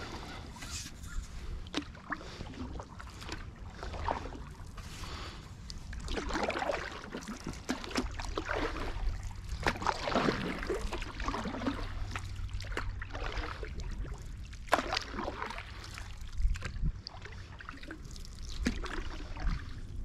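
Wooden canoe paddle stroking through calm water: irregular swishes of the blade with water trickling and dripping off it, and a few sharp knocks.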